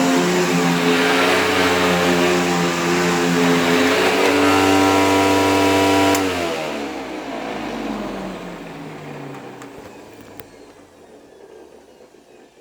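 Sharp Twin Energy EC-TU2709S upright vacuum's Ametek motor running steadily at full speed, then switched off with a click about six seconds in, its whine falling in pitch and fading as the motor spins down.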